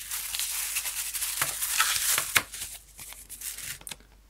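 Paper leaflets and a thin clear plastic packet rustling and crinkling as they are handled, with small clicks and taps. The rustling is loudest for the first two and a half seconds, then dies down to a few fainter clicks.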